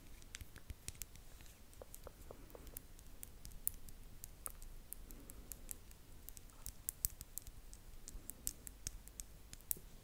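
Close-miked ASMR mouth sounds: soft, irregular lip clicks and pops, several a second.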